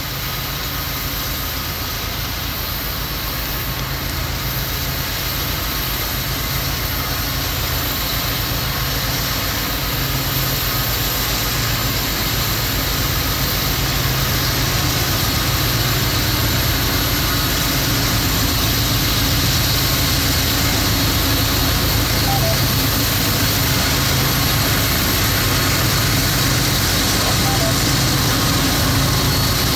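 Diesel locomotive engines running with a steady low drone, growing gradually louder.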